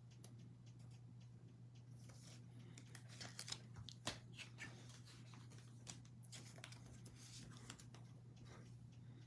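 Faint handling of trading cards and pack wrappers: soft rustling and scattered small clicks, with one sharper click about four seconds in, over a steady low hum.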